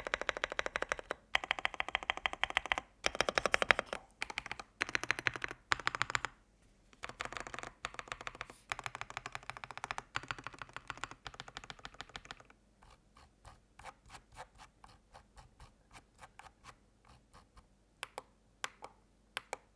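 Typing on an Akko 5098B mechanical keyboard. Fast runs of keystrokes last about twelve seconds, then give way to slower, quieter single keypresses, with a few louder, sharper clicks near the end.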